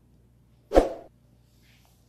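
A single short sound effect, sudden and lasting about a third of a second, a little under a second in; otherwise near silence.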